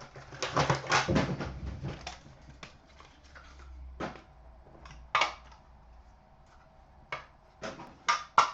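A box of trading cards being opened and handled: a burst of rustling and clicking, then scattered sharp clicks and taps of cardboard and plastic.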